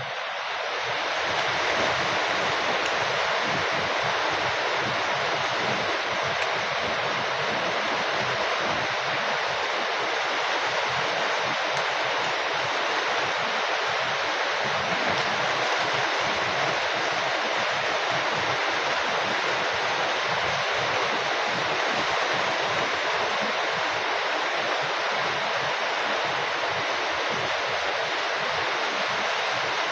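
Heavy rain falling steadily, an even hiss that keeps the same loudness throughout.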